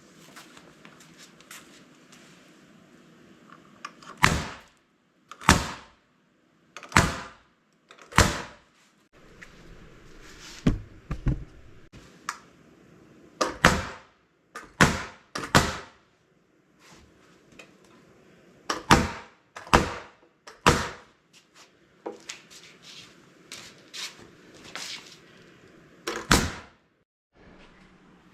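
A series of about fifteen sharp knocks or thumps, irregularly spaced and some in quick pairs, over a faint steady background.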